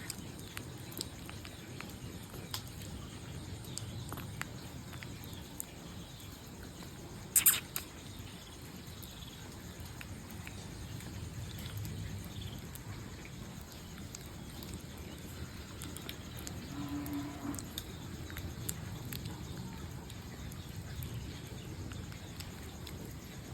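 Wood fire crackling: scattered small pops over a low steady rustle, with one sharp loud snap about seven and a half seconds in. A brief faint pitched sound comes near the seventeen-second mark.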